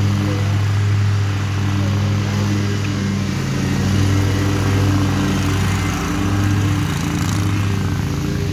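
Lawn mower engine running steadily with an even hum. Its pitch wavers slightly about three-quarters of the way through.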